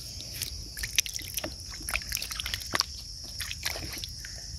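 Wet sand squelching and water sloshing as hands scoop into waterlogged sand, in quick irregular squishes and splashes. A steady high-pitched insect drone runs behind it.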